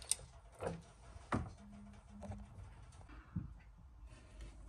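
Trolley jack and tools being handled under the car as the jack is set against the engine sump: a few faint, scattered clicks and knocks, with two brief low hums near the middle.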